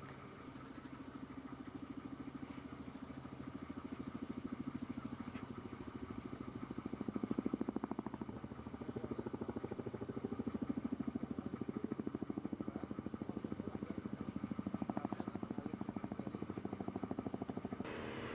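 British Chinook tandem-rotor helicopters in flight: a steady, rapid rotor chop that grows louder about seven seconds in. Near the end the sound changes abruptly to a brighter rushing noise.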